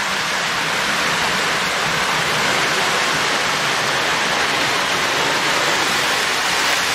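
Lionel post-war steam locomotive, No. 1655, running a heavy train of freight cars around three-rail O-gauge track: a steady, even rushing rumble of wheels on the rails and the locomotive's motor.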